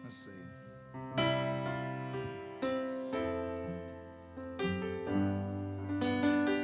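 Soft keyboard music: slow sustained chords, a new chord struck every second or two and left to fade.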